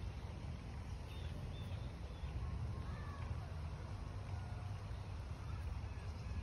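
Quiet outdoor ambience: wind rumbling on the phone's microphone, with faint bird chirps now and then.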